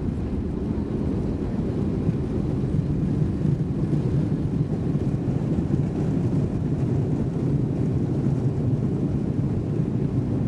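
Steady low rumble in the cabin of an Airbus A320 taxiing on the ground after landing: the jet engines running at low power and the airliner rolling along the taxiway.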